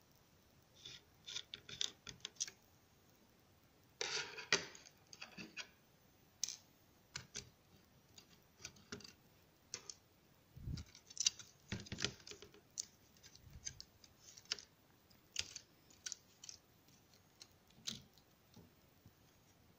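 Scattered small clicks, taps and scrapes of a screwdriver and hard plastic and metal laptop parts being handled during netbook disassembly, with a couple of duller knocks midway.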